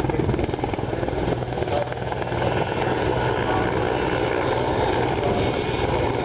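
Erickson S-64 Air-Crane heavy-lift helicopter flying past, its main rotor making a steady rapid chop over the run of its twin turbine engines. It gets a little louder after about two seconds as it comes nearer.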